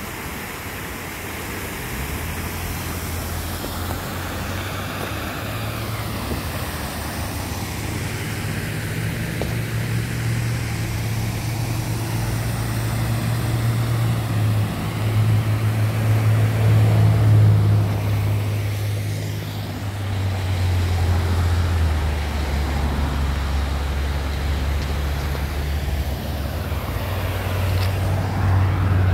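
Wet outdoor ambience in the rain: a steady rushing noise under a strong low rumble that rises and falls, loudest about midway through.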